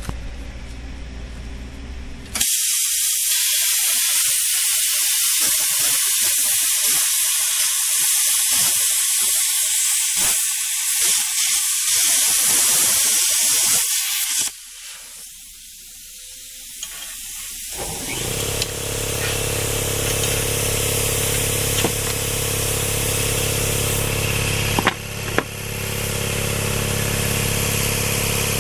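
Handheld plasma cutter cutting a metal motor mounting plate: a loud, steady hiss of the arc and air jet that starts a couple of seconds in and stops about halfway through. After a few seconds of quieter hiss, a motor starts up with a steady hum.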